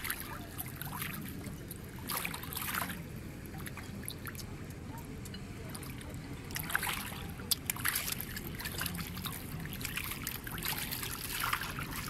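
Gilthead sea bream snapping at bread at the water's surface: scattered sharp clicks from their teeth and jaws closing on the bread, over the lapping and small splashes of the feeding school, in clusters a couple of seconds in, around the middle and near the end.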